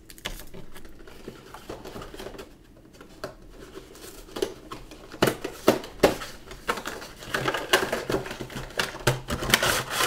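Cardboard and plastic packaging of a boxed action figure being handled and opened: crinkling and rustling with a run of sharp clicks and scrapes, busier in the second half.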